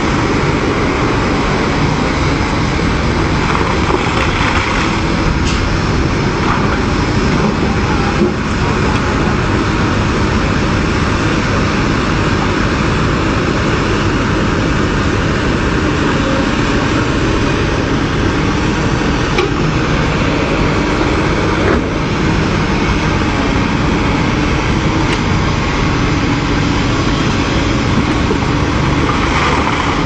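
Diesel engines of several hydraulic excavators running steadily under working load, a continuous loud engine noise with no breaks.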